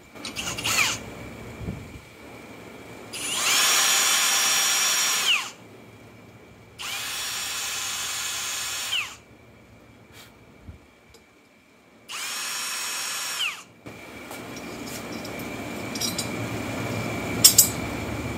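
Drill running in three bursts of about two seconds each, each winding up to speed and back down, as it bores holes through a metal ruler. A rising, even noise and a couple of sharp clicks follow near the end.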